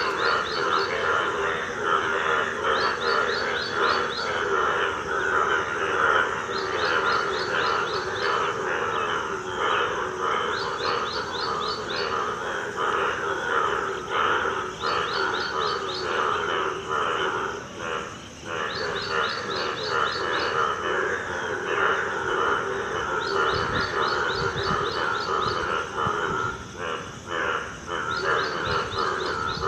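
A dense chorus of many frogs calling at once, croaking without a break during monsoon rains. Every few seconds a short run of rapid, high-pitched chirps rises above the chorus.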